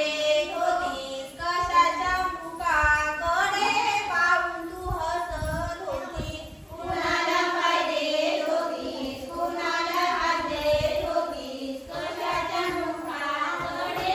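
A group of women and girls singing a fugdi folk song together while dancing in a circle.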